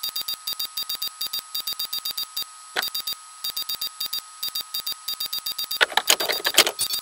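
Typing sound effect of rapid, even mechanical clicks, about seven a second, over a steady high tone. The clicks pause briefly with a single knock about two and a half seconds in, then resume, with a few louder strokes near the end.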